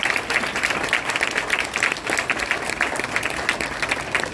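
Applause from a room full of people, many hands clapping steadily and irregularly.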